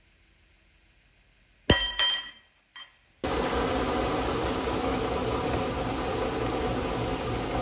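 Two sharp hammer strikes on a steel center punch, each ringing briefly, then a lighter tap. Then a drill press runs steadily, drilling through a flat steel bar.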